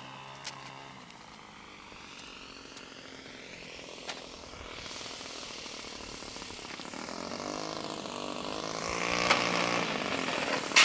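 Saito 14 cc four-stroke engine of an RC SE.5A model biplane at low throttle, its pitch sweeping up and down as the plane passes, and growing louder over the last few seconds as it comes in low to land.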